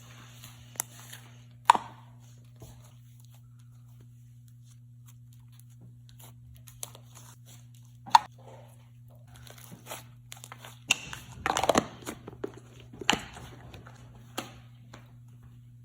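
Clicky slime being stretched and squished by hand: sharp clicking pops about two seconds in and again about eight seconds in, then a dense run of crackling and tearing pops for about two seconds near the end.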